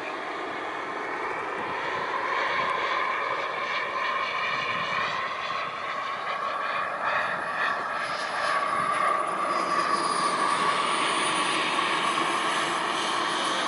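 Skymaster T-38 Talon RC model jet in flight: a steady jet whine over a rushing hiss, its pitch shifting a little as the plane moves, growing somewhat louder after the first couple of seconds.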